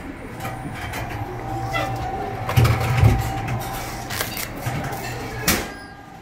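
Rice cracker puffing machine (ppeongtwigi press) running with a steady hum, giving a loud low burst about halfway through as the heated mold pops a rice disc, then a sharp crack near the end.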